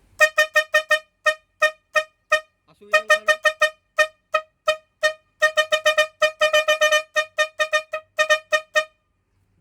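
A single-pitched vehicle horn sounded in dozens of short, quick beeps, tapped out in rhythmic clusters like a tune played on the horn button.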